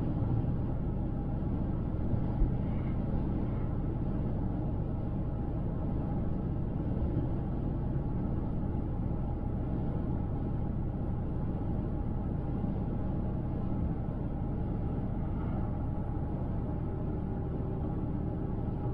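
Car driving at highway speed, with a steady low rumble of tyres and engine. There is one light knock about two and a half seconds in.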